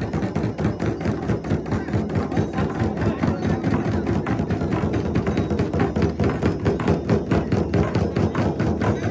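Drum beaten in a fast, steady rhythm of many strokes a second, with no break.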